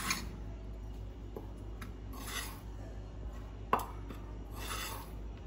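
A metal spoon tipping roasted gram flour onto a stainless steel plate: soft pouring and scraping sounds with a few light clinks of spoon against steel, the sharpest about three and a half seconds in.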